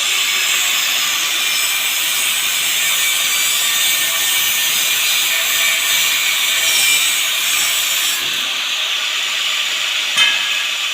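Metal being cut with a steady hissing, with one short click about ten seconds in.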